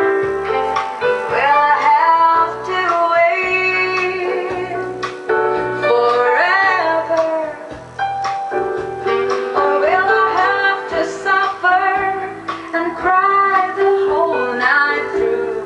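Recorded pop song with a woman singing over a band accompaniment, played back through 1929 Victor (RCA) monoblock power amplifiers.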